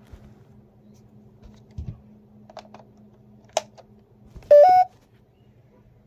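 A few light plastic clicks and knocks of handling, then a single short electronic beep from a Kidde P4010DCS-W smoke alarm that steps up in pitch, the chirp of the alarm powering on as its green light comes on.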